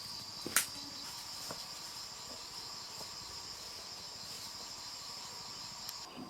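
Steady high-pitched insect chorus in the forest, a continuous buzzing drone; one of its tones drops out near the end. A single sharp snap about half a second in stands out above it.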